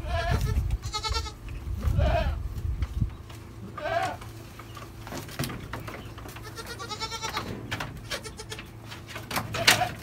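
Goats bleating in a pen, about six separate high, wavering calls, the loudest near the end. Low bumps and rustling during the first few seconds as someone climbs over the wooden rails.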